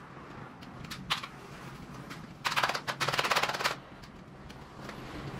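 A rapid mechanical rattle lasting a little over a second in the middle, made of many fast, evenly spaced clicks, with a few single sharp clicks about a second in.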